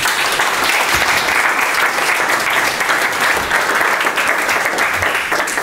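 Audience applause: a room full of people clapping steadily, starting abruptly and easing off near the end.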